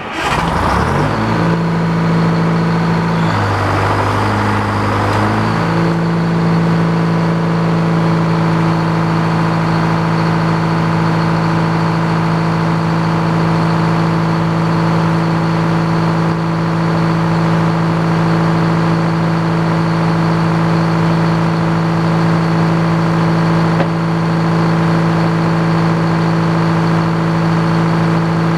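Sawmill engine starting up: it catches suddenly, its pitch climbs, wavers for a few seconds, then settles into a steady run about six seconds in.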